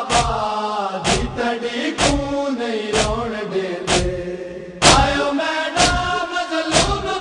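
Men's voices chanting a Punjabi noha in unison, with a chest-beating (matam) slap about once a second keeping the beat.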